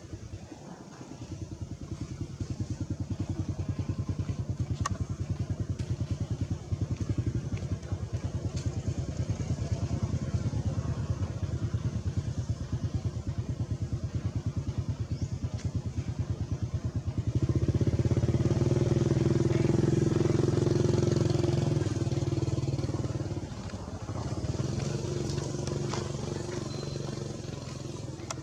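A small engine running steadily with a rapid, even pulse. It grows louder about two-thirds of the way through for several seconds, then drops back.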